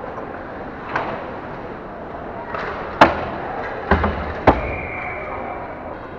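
Ice hockey scramble at the goal: sharp cracks and knocks of sticks, puck and players against the net, the loudest about three seconds in and a quick cluster of heavier thuds around four to four and a half seconds, over steady arena noise.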